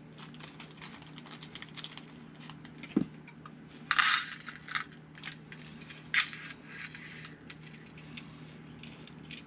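Small screws and hardware clinking and a clear plastic parts bag crinkling as hands sort through them for a servo-arm screw: a string of light clicks with a few short, louder rustles about four and six seconds in.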